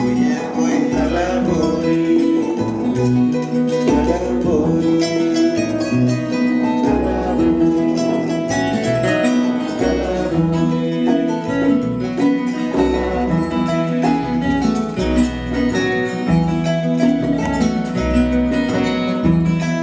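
Music led by plucked guitar over a bass line, playing steadily.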